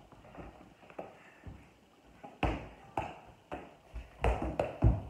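Soccer ball being juggled, struck repeatedly by a bare foot: a run of dull taps about two a second, starting about halfway through.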